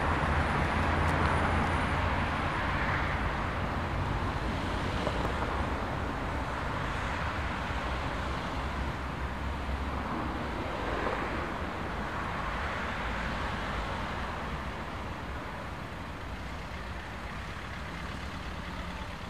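Steady city road traffic: a wash of tyre and engine noise with vehicles swelling past every few seconds, under a low hum that stops about halfway through. The whole slowly fades.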